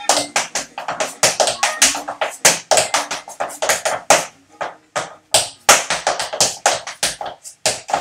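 Tap shoes striking a tap board on the floor in quick, irregular freestyle rhythms, many sharp taps a second with a few short pauses in the middle.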